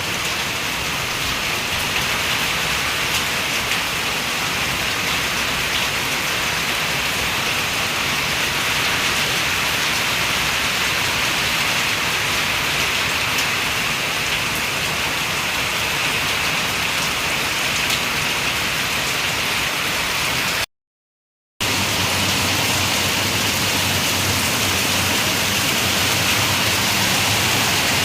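Heavy, steady rain pouring down during a tropical storm. It breaks off for under a second about three quarters of the way through, then comes back with a low steady hum underneath.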